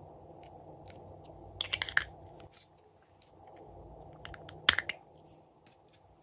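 Small plastic lip-shaped pots being handled: a quick cluster of sharp plastic clicks about one and a half seconds in, then another sharp snap near five seconds in as a pot's lid is opened, with faint ticks between over a low steady hum.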